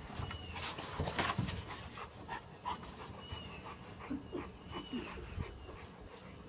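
A dog panting in irregular breathy bursts during rough play with a raccoon, the strongest bursts in the first second and a half, with a few faint short high calls behind.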